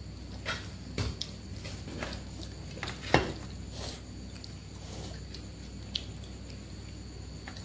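Fingers mixing and scraping rice and mushroom in stainless steel plates, with scattered light clinks and taps on the metal; the sharpest tap comes a little past three seconds in. A steady low hum runs underneath.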